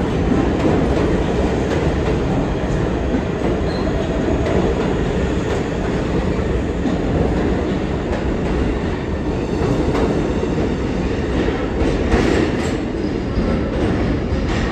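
New York City subway train rolling along the platform: a steady rumble of steel wheels on the rails, with a few clicks near the end.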